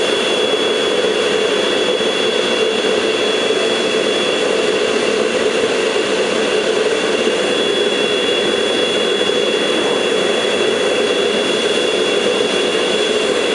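Homemade gas forge running with a vacuum cleaner as its blower: a loud, steady rushing noise with a thin, unchanging high whine over it.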